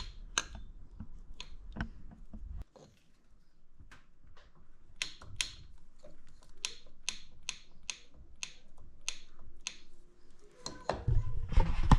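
Sharp metal clicks, about two a second, as an Ironhead Sportster piston is shifted side to side on its connecting rod and knocks at each end of its side play, a gap of a little over 1/8 inch.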